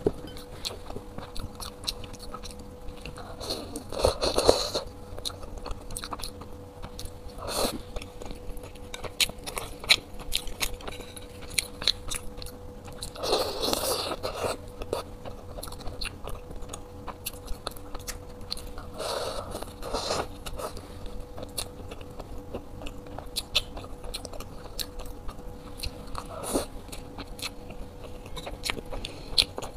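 Close-up eating: bites into soft black buns dipped in chocolate sauce, then chewing with many small wet mouth clicks. The loudest bites come about 4, 8, 14, 20 and 26 seconds in, over a steady faint hum.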